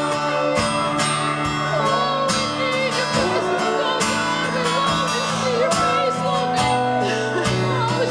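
Live worship band playing a slow song, with strummed acoustic guitar and sustained chords, and a voice or lead melody wavering over it.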